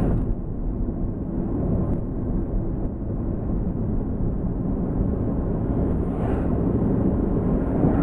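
Steady low road and wind noise inside a moving car's cabin on a snow-covered highway, swelling as oncoming vehicles pass about six seconds in and again near the end.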